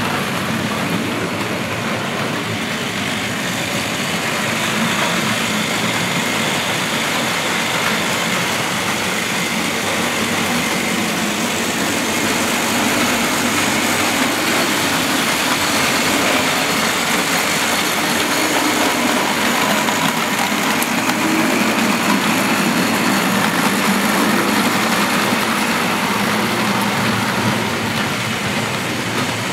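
Tri-ang 00 gauge model locomotives running on the layout: a steady whirring of their electric motors and gears with the rumble of wheels on the track, the hum rising and falling slightly as the trains pass.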